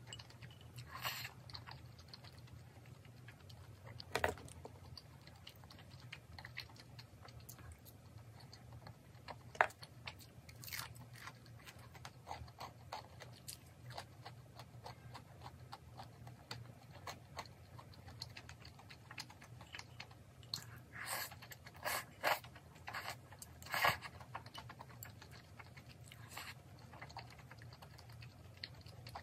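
Eating sounds: chewing and sips of spicy udon broth from a small bowl, with scattered short clicks, over a faint low hum.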